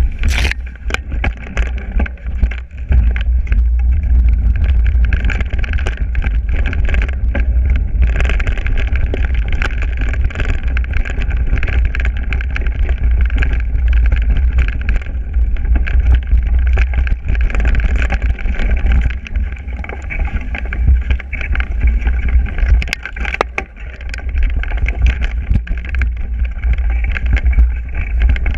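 Mountain bike ridden along a dirt forest trail, heard from a GoPro on the bike or rider: a steady wind rumble on the microphone with frequent knocks and rattles as the bike goes over bumps.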